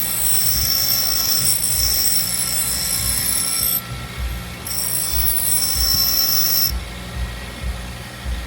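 Welding torch arc run in two bursts with a high-pitched whine over a rough crackle: the first lasts about four seconds, and after a short break the second lasts about two.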